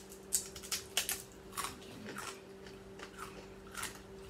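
Crisp One Chip Challenge tortilla chip being bitten and chewed by two people: a string of short, irregular crunches.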